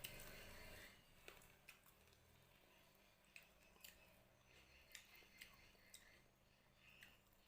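Faint eating sounds close to the microphone: scattered, irregular sharp clicks of chewing and mouth smacks as fried carp and rice are eaten.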